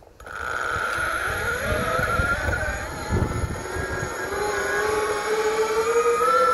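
Electric off-road mountainboard's motors starting up with a sudden whine that sags a little, then climbs steadily in pitch as the board picks up speed, over a low rumble from the wheels.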